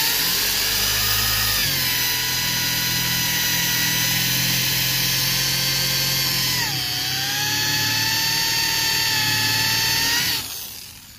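Electric drill boring out a plastic screw insert with a large twist bit, its motor whine running steadily and dropping in pitch twice as the bit works into the plastic, then stopping about a second before the end.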